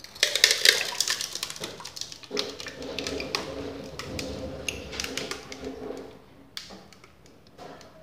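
Thick custard batter pouring from a glass bowl through a plastic mesh sieve into an aluminium pudding mould. It crackles and splashes at first, then runs as a steadier gurgling pour, with light clicks of the bowl and sieve rims near the end.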